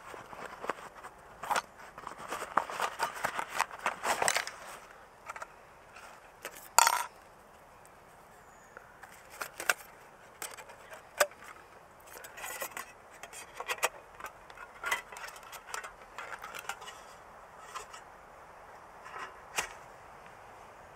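Camping cookware being unpacked and handled: rustling of a fabric drawstring stuff sack, then clinks, knocks and scrapes of the thin metal plates of a Trangia Triangle stove stand and a small metal pot. The clicks are irregular, denser early on, with two sharp knocks standing out.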